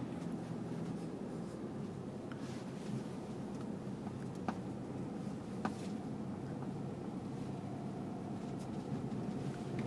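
Inside the cab of a Toyota Hilux diesel pickup on the move: a steady low engine hum and road noise, with a few faint light clicks.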